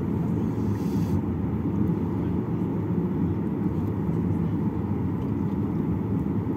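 Boeing 737-800 cabin noise while taxiing: a steady low rumble from the CFM56 engines at taxi power and the aircraft rolling along the taxiway.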